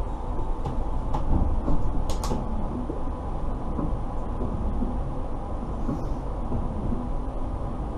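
Steady hum inside the cab of an Alstom Citadis Dualis tram-train standing at a platform, with two sharp clicks about two seconds in.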